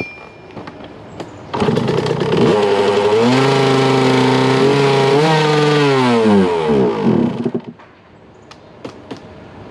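1990 Yamaha YZ125's two-stroke engine firing up on starter fluid, its first start in about three years. It catches about a second and a half in, runs steadily for a few seconds, revs briefly, then sags and dies. The owner takes this for a sign of a carburettor problem.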